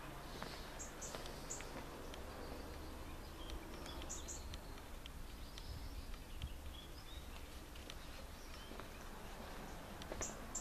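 Faint outdoor ambience: birds chirping in short clusters of high chirps now and then, over footsteps on stone paving and a low handling rumble.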